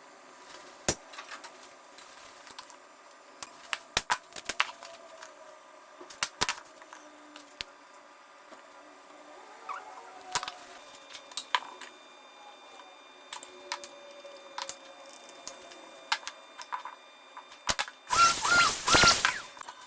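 Scattered light clicks and knocks of hand work in a woodworking shop, with a short, louder burst of rushing noise about a second long near the end.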